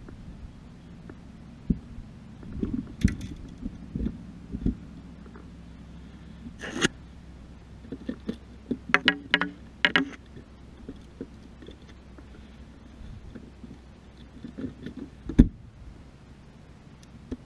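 Scattered knocks, clicks and rattling clatter of gear being handled in a bass boat's storage compartment, with one sharp loud knock near the end.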